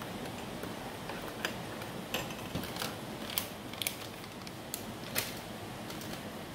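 Metal spoon stirring a matcha latte in a ceramic mug, clinking against the inside of the mug at irregular intervals, about eight light clinks over a steady background hiss.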